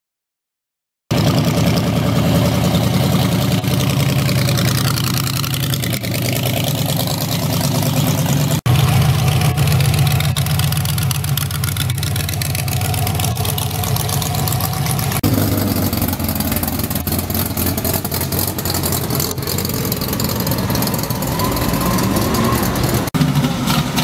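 Hot-rod V8 engines running steadily as the cars drive slowly past, one car after another, starting about a second in after silence. The sound changes abruptly three times as one clip cuts to the next.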